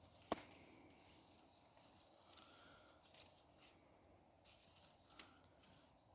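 Faint brush-pile fire of smouldering branches, crackling with a few scattered sharp pops, one louder snap just after the start.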